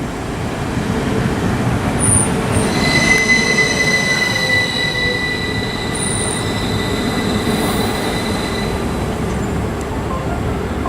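Class 333 electric multiple unit running slowly through the station with a rumble from the wheels on the rails and a steady wheel squeal that sets in about three seconds in and fades near nine seconds, with short higher squeals at about two and six seconds.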